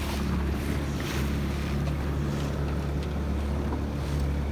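Small boat's motor running steadily at trolling speed, a low even hum, with water rushing along the hull and wind buffeting the microphone.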